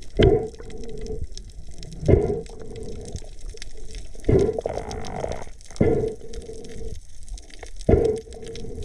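Water gurgling and splashing in repeated surges about every two seconds, each with a brief tone in it.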